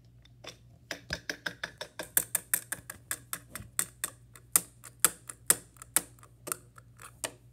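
Rapid, uneven clicking and tapping of hard plastic on plastic, about four or five sharp clicks a second, as a small plastic toy figure is handled and tapped against a plastic toy box.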